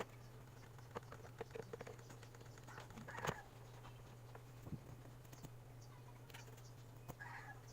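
Faint scattered clicks and taps over a steady low hum, with one louder click about three seconds in.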